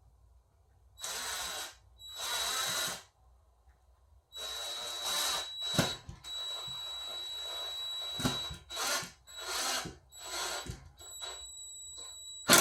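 Cordless drill driving screws through pocket holes to join the wooden frame strips. It runs in repeated short bursts, some with a steady whine, with brief stops between them.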